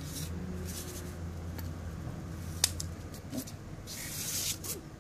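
Handling noise from the phone filming: scattered sharp clicks, one louder click about halfway, and a short rustling hiss near the end as the camera moves, over a low steady hum that fades out partway through.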